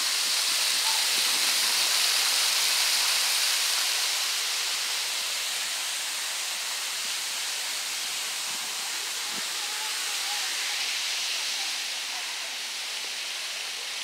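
Water pouring over a small concrete spillway into a creek: a steady rushing, loudest in the first few seconds and gradually fading over the rest.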